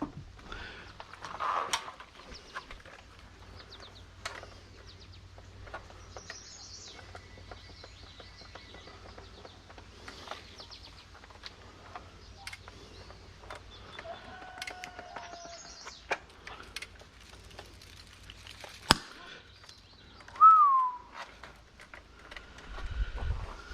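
Washing machine motor humming low while it is tested on power, with one sharp snap about nineteen seconds in, taken for the big crackle and snap of a failure. Birds chirp throughout, and a loud falling bird call comes just after the snap.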